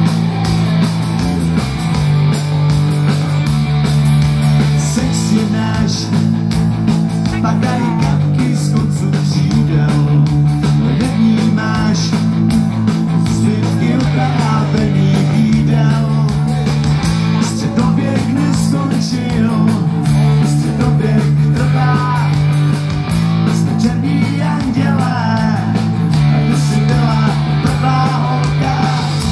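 Live rock band playing through a large outdoor PA: electric guitar chords over bass and drums, with a voice singing the melody through much of it.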